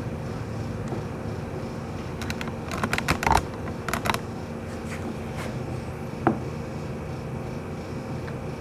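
A seized Embraco refrigerator compressor, given blips of power with a start capacitor in circuit, hums without starting, with clusters of sharp clicks about three and four seconds in. The owner takes its loose buzzing hum for a sign of an internal mechanical failure.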